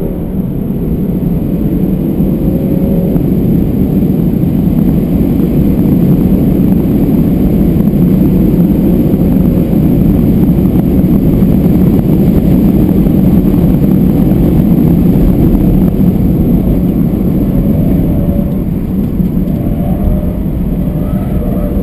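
Inside the cabin of a BMW F31 320d on track: its four-cylinder diesel runs under hard acceleration along with heavy road and wind noise. The sound builds over the first few seconds, holds steady, then eases off near the end as the car slows for a corner.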